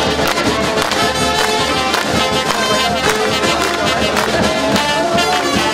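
Brass band playing a lively tune over a steady drum beat.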